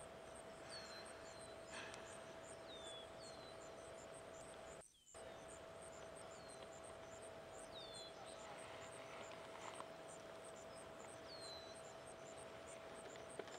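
Faint woodland ambience: insects calling in a steady rapid pulse, with short high falling chirps about once a second over a faint steady tone. The sound drops out briefly about five seconds in.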